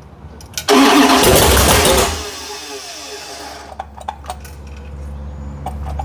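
Freshly built 512 cubic inch big block Mopar V8 on an engine run stand firing up about a second in. It revs very loudly for just over a second, then drops back to a steady, much quieter idle.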